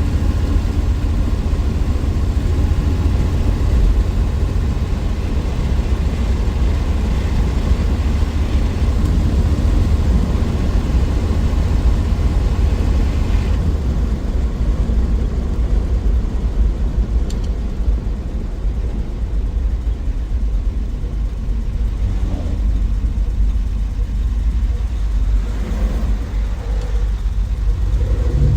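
1963 Willys Wagon's Tornado 230 overhead-cam inline six running on the move, a steady heavy low rumble mixed with road noise. The higher part of the noise drops back about halfway through.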